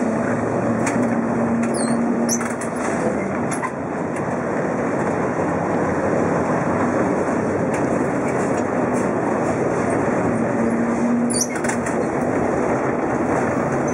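Vintage electric tram running on street rails, heard from inside its wooden driver's cab: a steady rumble of the wheels and running gear with a faint motor hum that comes and goes. A couple of brief high squeaks sound about two seconds in and again near the end.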